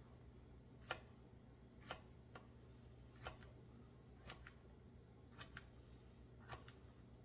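Kitchen knife slicing hot peppers into rings, the blade tapping down on the cutting board about once a second, several times as a quick double tap.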